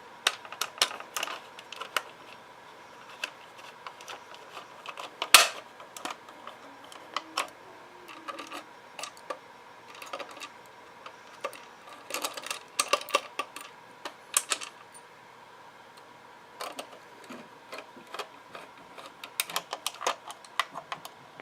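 Irregular clicks and taps of the hard plastic parts of a 1995 Thinkway Buzz Lightyear figure being handled while a wing tip is taken off and a new one fitted, with one sharper knock about five seconds in.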